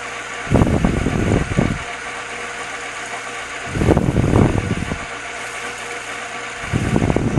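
Metal lathe running with a steady motor hum, broken three times by a rough, louder burst about a second long as the cutting tool is fed into the spinning workpiece to cut a groove.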